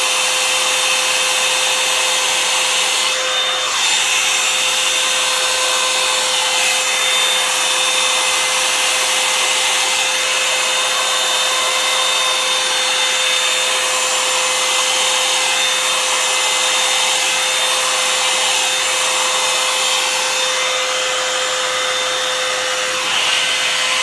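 Revlon paddle-brush hair dryer running steadily on its high setting, a constant whir of the fan with a steady whine, as it is drawn through a section of hair.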